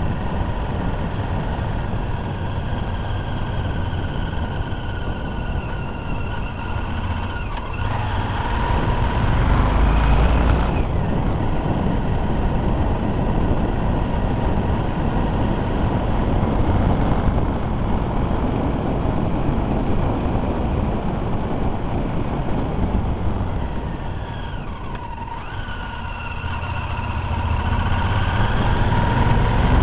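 Motorcycle engine running at road speed as heard from the bike itself, with wind rumble on the microphone. The engine note dips and climbs again about a third of the way in and once more near the end, as the rider changes gear or throttle.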